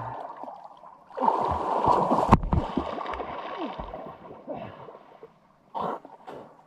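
Muddy pond water sloshing and splashing as a person sinks under the surface close to the camera, with one sharp knock about two seconds in and a short splash near the end.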